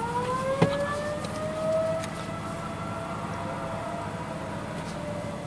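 Outdoor tornado warning siren winding up, its pitch rising through the first second or two and then holding steady. A sharp click sounds about half a second in.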